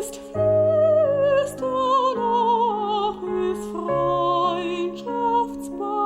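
Soprano singing with vibrato over held instrumental chords.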